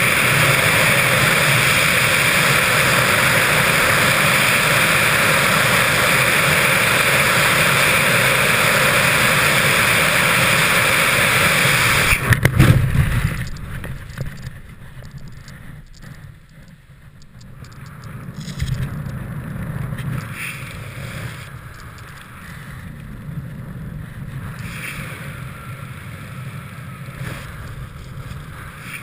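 Loud, steady rush of freefall wind over the jumper's camera microphone, cut off about twelve seconds in by a short loud burst as the BASE parachute opens. After that comes much quieter, uneven wind under the open canopy.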